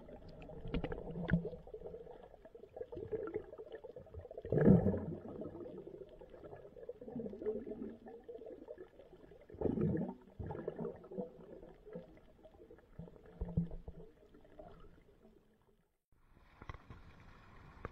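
Muffled underwater gurgling and bubbling, irregular, with louder surges about five and ten seconds in, and a short dropout near the end.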